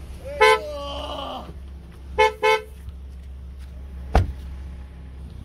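Vehicle horn honking: one short toot, then two quick toots about two seconds in, over a steady low rumble. A sharp knock sounds near the end.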